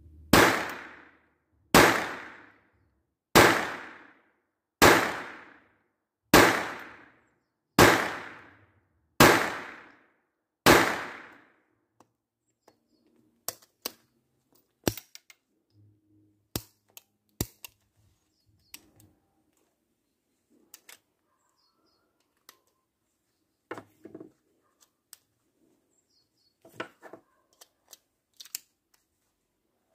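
Taurus PT-22 .22 LR pistol firing MAXX Tech standard-velocity round-nose cartridges: eight sharp shots, about one every second and a half. After the last shot come light scattered clicks of the pistol being handled.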